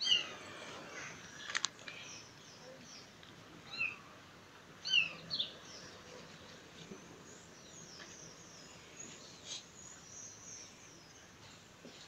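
Kitten trapped in a storm drain mewing: short, high, falling cries, several of them around four to five seconds in. A couple of faint clicks.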